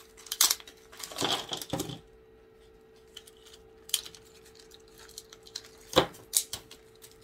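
Thin plastic orchid pot crackling and snapping as it is cracked apart and pulled off the root ball and bark, with rustling of shredded paper packing. The handling comes in irregular crunches, a cluster of them about a second in and a single sharp snap, the loudest, about six seconds in.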